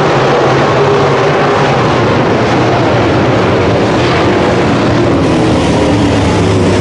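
Several dirt late model race car engines running loud and steady on the track.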